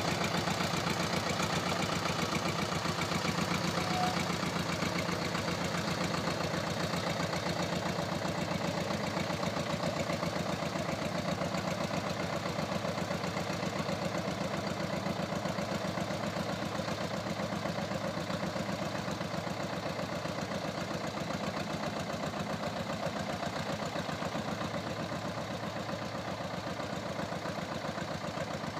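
SAME 250 tractor engine running steadily with an even firing beat, growing a little quieter near the end.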